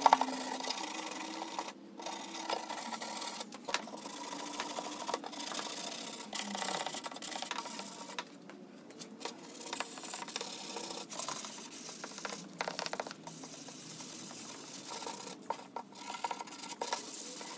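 A 220-grit sanding sponge rubbed by hand over a bare aluminum snowmobile tunnel in straight back-and-forth strokes: a scratchy rasping that comes in repeated strokes with short pauses.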